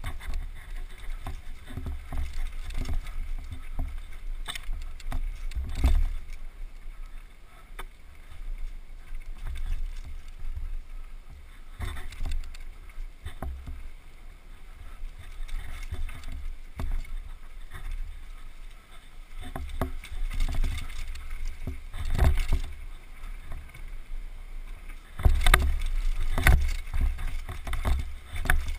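Downhill mountain bike ridden fast over a rocky, rooty dirt trail: a steady low rumble of tyres on dirt, broken by frequent sharp clanks and rattles of the bike over bumps, with the heaviest clatter near the end.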